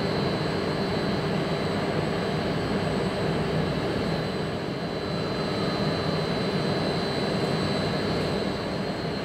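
Jet engines of an airliner running steadily: a continuous rumble with a thin high whine held on one pitch.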